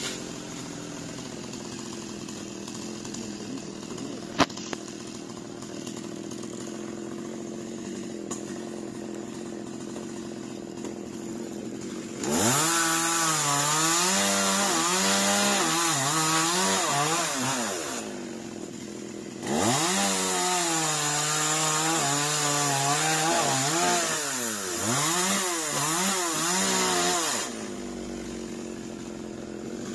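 Two-stroke chainsaw idling steadily, then opened to full throttle twice for several seconds each, its pitch sagging and recovering as the chain loads up in the cut, and dropping back to idle between cuts and near the end. One sharp click sounds during the first idle.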